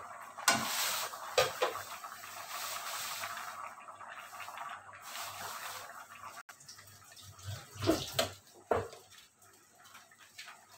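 Metal ladle stirring chunks of squash through a pot of vegetables simmering in coconut milk: wet sloshing and squelching, with a few sharp knocks of the ladle against the steel pot, shortly after the start and again about eight seconds in.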